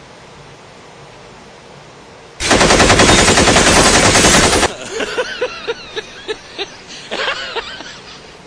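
Faint steady hiss, then about two and a half seconds in a loud, rapid burst of automatic gunfire lasting about two seconds. It is followed by a scattered run of quieter sharp reports with a pitched ring.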